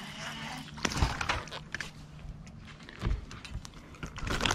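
Handling sounds of a small bass being landed into a bass boat: dull thumps about a second in and again about three seconds in, with scattered clicks and rustling, then a short scuffling burst near the end as the fish is gripped. A faint steady hum runs underneath.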